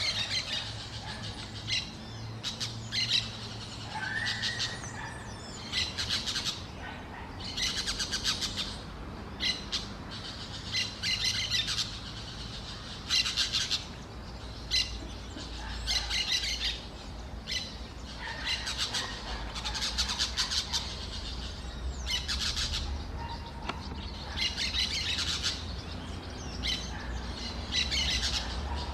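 A songbird singing: repeated bursts of rapid, high chirping notes, each about a second long, coming every couple of seconds, over a faint steady low rumble.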